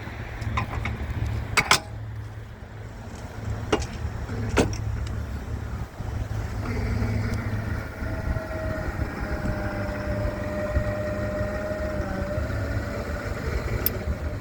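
US&S M23B electric switch machine running its motor for about seven seconds to throw the points: a steady whine that sags a little near the end. A few sharp clicks come earlier, over a low steady rumble.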